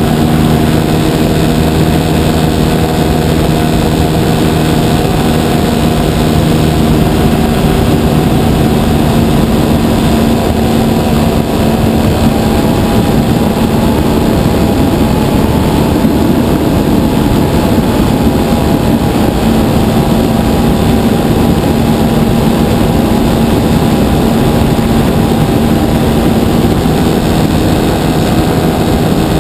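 Giant-scale RC Piper Cub's engine and propeller running loud and continuous in flight, heard from a camera mounted on the airframe beside the engine. The engine note holds steady, wavers through the middle, then settles again.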